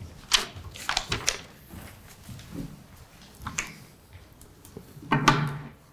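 Clicks, knocks and rustles of papers and a microphone being handled at a wooden lectern, several in quick succession about a second in and another a little past halfway. A short, louder vocal sound comes just after the fifth second.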